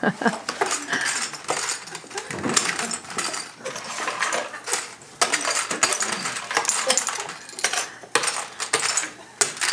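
A spoon and chopsticks clicking and scraping against bowls in quick, irregular clinks as cereal is eaten fast.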